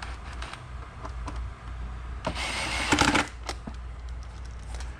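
Plastic motorcycle body parts being handled and worked into place: a few light clicks, then, about two and a half seconds in, a second-long scraping rasp, the loudest sound here, over a steady low hum.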